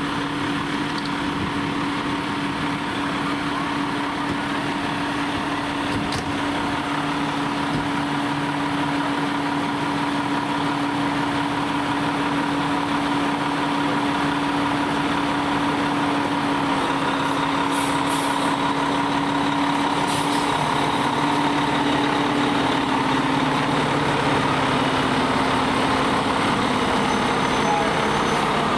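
Fire engine's diesel engine running with a steady drone, growing gradually louder as the engine pulls forward and rolls past. Two short air hisses come about two-thirds of the way through.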